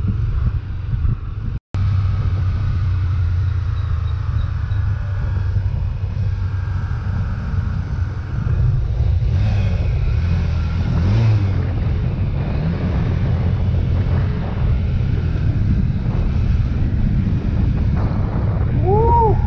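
Motorcycle engine running steadily under a low rumble of wind on the camera's microphone while riding, with a momentary total dropout a little under two seconds in.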